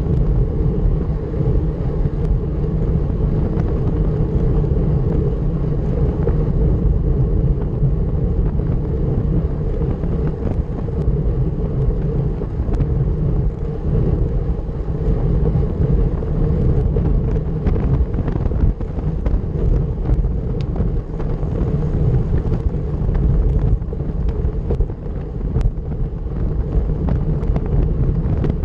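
Steady wind rush on the microphone and road rumble from a road bike ridden at time-trial speed, with occasional faint ticks.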